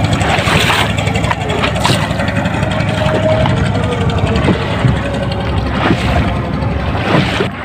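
Motor engine running steadily with a fast, low chugging rhythm.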